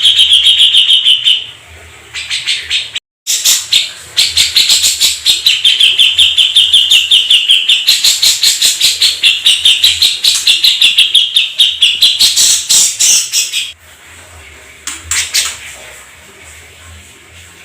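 Domestic canary singing long, fast rolling trills of rapidly repeated notes, broken briefly about three seconds in. The song stops abruptly about fourteen seconds in, followed by a couple of faint notes.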